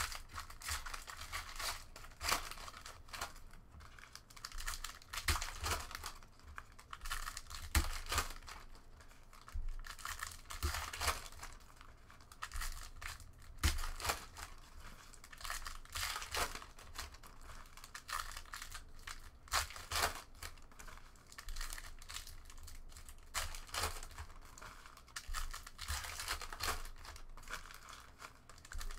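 Foil trading-card pack wrappers crinkling and tearing as packs are opened by hand, in irregular bursts on and off.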